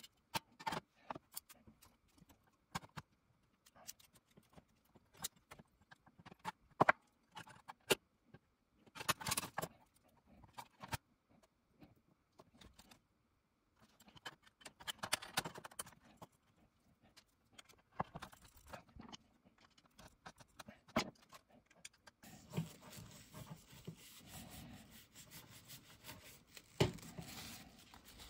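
Small metal parts being handled: a screwdriver turning screws and a sheet-metal cassette-deck motor bracket being worked loose, giving scattered clicks, taps and short scrapes.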